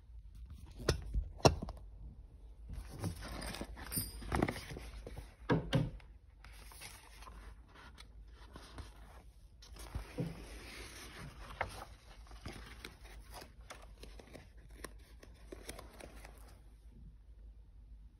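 A repositionable canvas-like wall decal being handled and pressed onto a wall: rustling and scraping of the flexing sheet, with a few sharp knocks, the loudest about a second and a half in.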